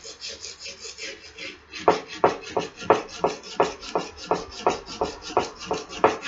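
Sandpaper scrubbing back and forth by hand over a rusty steel axe head, taking the rust off. Light, quick strokes give way about two seconds in to louder, regular strokes, about three a second, each with a sharp scrape at the turn.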